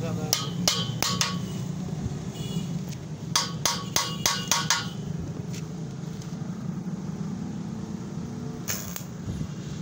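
A small hand hammer striking a freshly welded steel pipe joint on a bed frame, giving sharp metallic taps: a quick run of about four, then about six more a couple of seconds later, and one more near the end. A steady low hum runs underneath.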